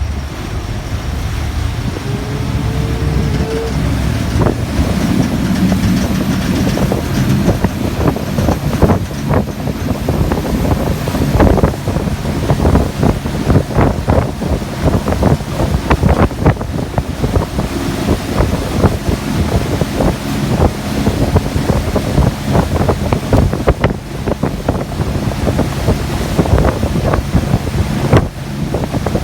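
Volvo Penta D6-350 six-cylinder marine diesel running under acceleration, with a sharp irregular knocking that sets in about four seconds in and carries on over the engine's drone: the fault that the starboard engine shows when accelerating.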